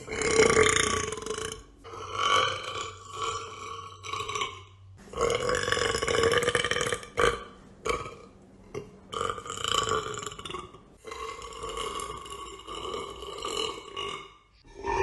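A woman burping: a string of long, drawn-out belches one after another, most lasting two to three seconds, with short pauses between them and one brief burp about eight seconds in.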